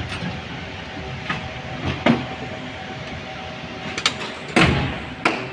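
An 81-722.1 metro car standing at a station with a steady electrical hum from its equipment. Several sharp clicks and knocks break in, the loudest a little over four and a half seconds in.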